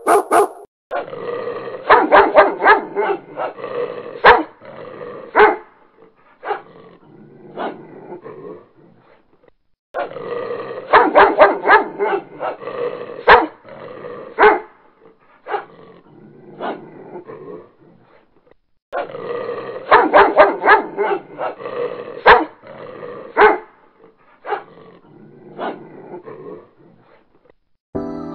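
A dog barking: a rapid burst of barks tails off into a few spaced single barks. The same sequence repeats three times, about nine seconds apart.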